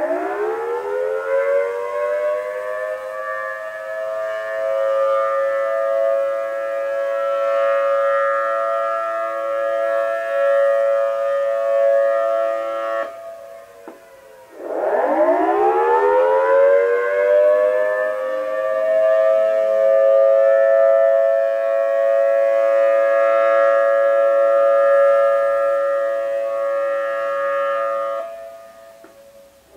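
Civil defense warning sirens on their monthly test, winding up in pitch to a steady wail made of several tones. About thirteen seconds in they cut out briefly, wind up again, and hold until they die away near the end.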